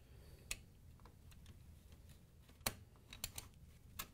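A few separate clicks and taps as a metal spring clip is fitted onto a washer's plastic water pump and motor mounting plate. The sharpest click comes about two and a half seconds in, then a quick pair and one more near the end.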